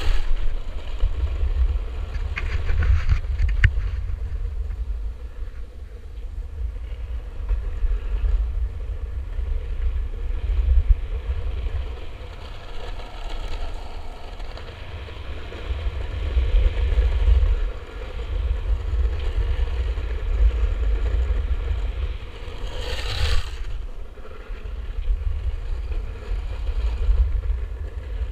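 Longboard wheels rolling fast down an asphalt road, with wind buffeting on the microphone as a loud, fluctuating low rumble. Brief scraping bursts come a few seconds in and again near the end.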